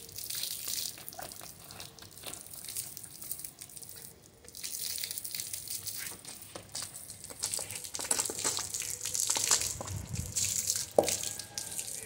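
Pump-fed water spraying and splashing over a large vulture's feathers as it is bathed, an uneven hiss and splatter with a few small knocks.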